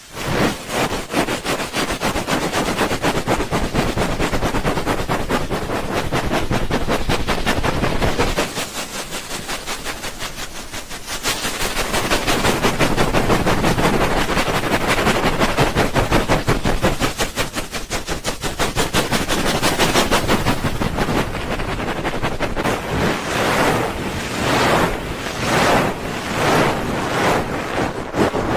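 ASMR 'helicopter' ear rubbing: hands rubbing and flapping fast over a binaural microphone's ears, making a rapid fluttering whoosh like rotor blades. It eases off twice and breaks into slower, separate swells near the end.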